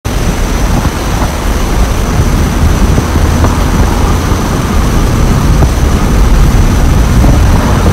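Jet fighter flying low, its engine a loud steady roar with a thin high whine over it.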